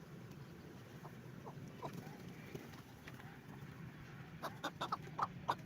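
Birds calling: a few faint short calls, then a quick run of about six sharp, short calls near the end.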